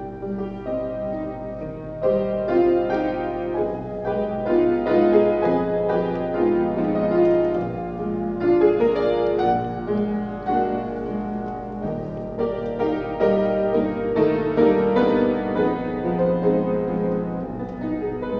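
Piano playing a slow classical accompaniment for a ballet barre exercise, note after note without pause.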